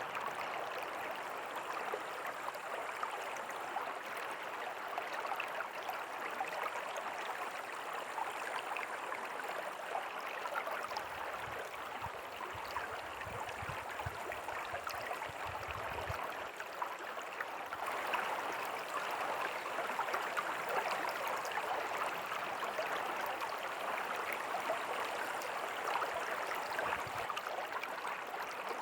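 River water flowing steadily: an even rush laced with small splashes.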